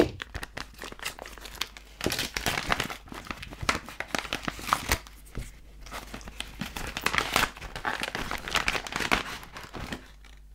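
Thin brown paper envelope being torn open and crumpled by hand: irregular ripping, crinkling and rustling of paper, in spurts with short pauses.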